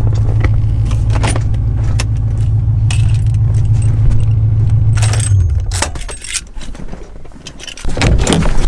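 Car engine running with a steady low hum, with many light clicks and rattles over it; the engine hum drops away about five and a half seconds in and the sound picks up again near the end.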